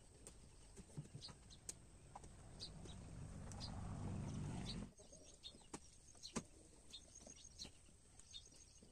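Small birds chirping in short, high calls, with scattered clicks and taps. A rush of low noise builds over the first half and cuts off suddenly about five seconds in.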